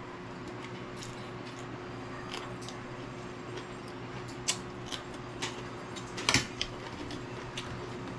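Eating sounds: scattered crisp crunches and clicks of chewing green vegetables, with a louder cluster a little after six seconds in, over a steady low hum.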